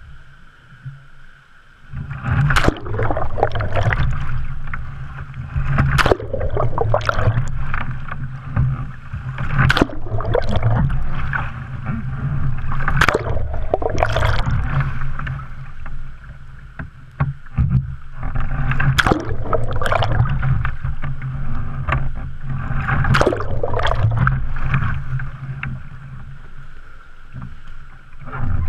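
Water splashing and churning around an NDK Pilgrim sea kayak as it is capsized and hand-rolled back upright again and again, starting about two seconds in. It is heard from a camera on the foredeck that goes underwater with the boat.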